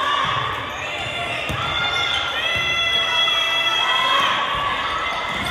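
Girls' voices shouting and cheering in a gym hall during a volleyball rally, with one long held shout in the middle. Dull thuds of the ball and feet on the court sound underneath.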